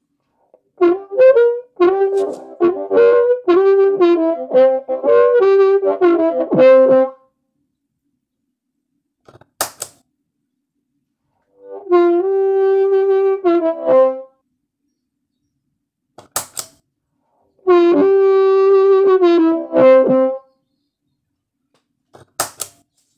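Amplified C harmonica played through a HarpMojo EQ pedal: a fast run of notes lasting about six seconds, then two long held notes that each bend down in pitch at the end. The first and last phrases have the pedal's fat boost on, and the middle one has it bypassed. Sharp clicks of the pedal's footswitch fall between the phrases.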